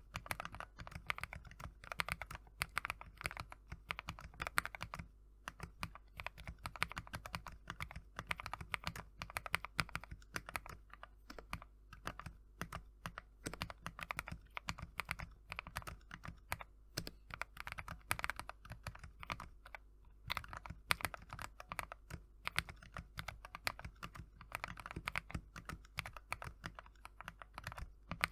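Continuous typing on a mechanical keyboard with stock, lightly factory-lubed JWICK Yellow linear switches: quick, irregular clacks of keys bottoming out and returning, with brief pauses between bursts.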